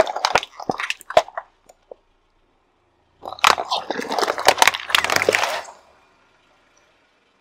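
Car tyre rolling over plastic cups of slime and jelly, crushing them: dense crackling and crunching of the plastic. It comes in two bursts, the first dying away within two seconds and the second starting about three seconds in and stopping near the end.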